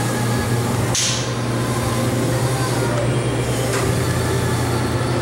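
Steady low mechanical hum, with a short hiss about a second in and a fainter one near the end.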